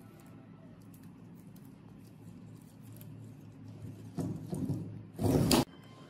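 Small parts handled on a wooden workbench: faint clicks and rustles over a low steady hum, rougher handling noise about four seconds in, then a loud short noise just after five seconds, the loudest sound here.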